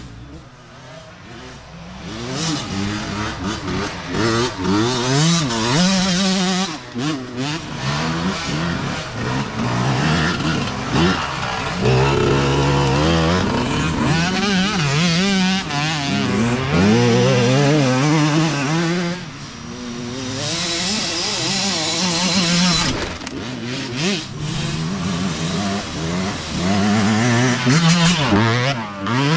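Dirt bikes racing past on a trail, engines revving up and falling back again and again through the gears. One after another comes and goes, the loudest passing close near the end.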